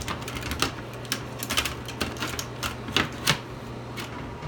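A quick, irregular run of sharp clicks and taps, thinning out near the end, over the steady low hum of a running bathroom exhaust fan.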